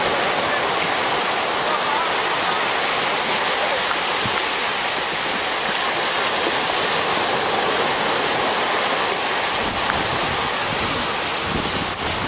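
Surf breaking and washing up a sandy beach: a steady, even rush of waves, with faint voices in the background.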